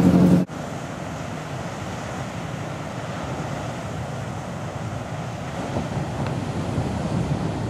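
Ocean surf breaking, with wind buffeting the microphone: a steady rushing noise that swells slightly over the seconds. It is preceded by a loud low pitched sound that cuts off abruptly about half a second in.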